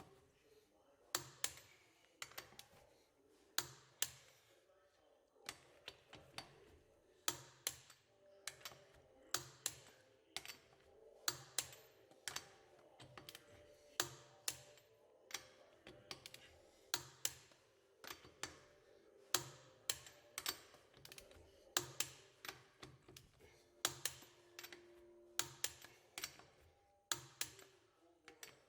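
A run of sharp clicks, about two a second and slightly irregular, many with a low thud under them.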